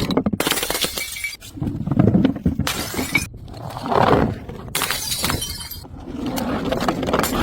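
Glass bottles shattering and crunching, several breaks in a row in short takes that cut off abruptly.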